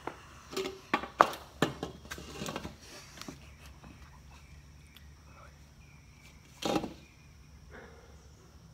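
Knocks and clatters of a patio sling lounge chair as a person climbs into it and settles. They come in a quick cluster through the first few seconds, loudest just over a second in, with one more heavy knock near seven seconds as the person leans back.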